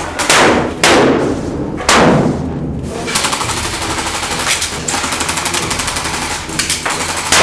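Three loud sharp bangs in the first two seconds, then a long stretch of rapid automatic fire from airsoft guns.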